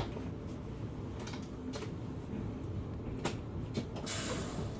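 Passenger train carriage rolling slowly through a station, heard from inside: a steady low rumble with scattered clicks and knocks, and a short hiss about four seconds in.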